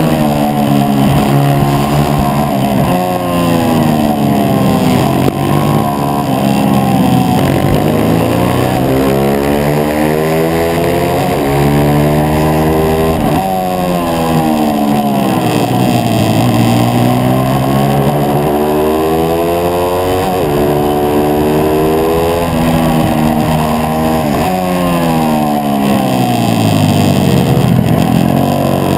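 A 140cc pit bike's engine, heard from onboard at race pace. The revs climb hard out of each corner and drop as the rider backs off for the next, over and over through the lap, with wind rushing over the microphone.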